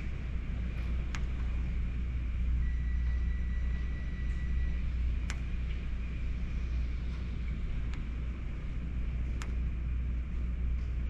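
Hurricane wind buffeting the microphone in a deep, steady rumble over the hiss of heavy rain. A few sharp ticks sound through it, and a thin whistle holds for about two seconds starting a little over two seconds in.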